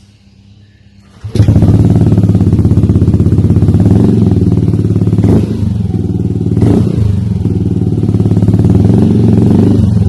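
Yamaha Aerox scooter's single-cylinder engine running loudly through a Triton Neuro carbon-Kevlar aftermarket exhaust, coming in suddenly about a second in, with a steady pulsing note and two brief surges midway.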